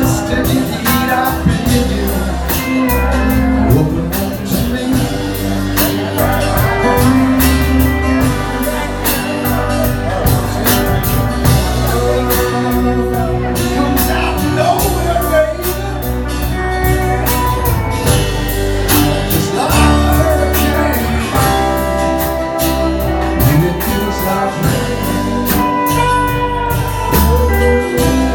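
Live band playing a song: guitar over bass and drums, with singing.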